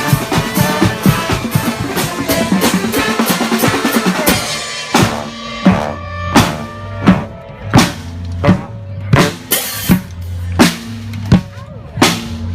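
Marching band playing, brass and drums together. About four seconds in the dense horn sound drops away and the drums carry on: a loud bass drum beat roughly every three-quarters of a second over low held bass notes.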